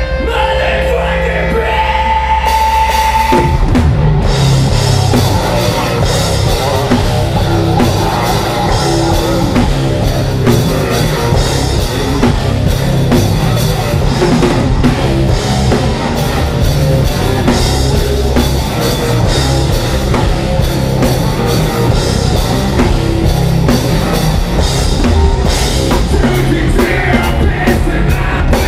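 A heavy rock band playing live: drum kit, distorted electric guitars, bass guitar and a vocalist singing into a microphone, loud through the PA. After a thinner opening with a held note, the full band comes in about three seconds in.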